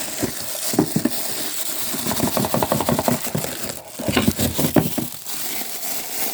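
Plastic packaging crinkling and rustling as it is handled, in quick irregular bursts.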